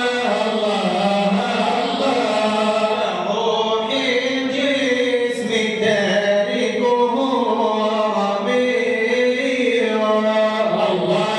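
Male voices chanting an Arabic devotional praise poem (madih), a continuous melodic line with held, wavering notes.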